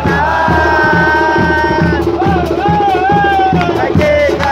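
A football supporters' band: bass drums beat steadily at about two strokes a second under a fast, rattling run of smaller drums, while a horn holds one long note and then plays a short wavering phrase over them.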